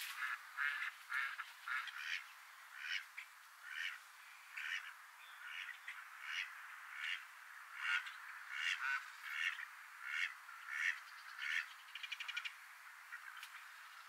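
Waterbirds on a wetland giving a steady run of short calls, about two a second, with a brief rapid rattle near the end.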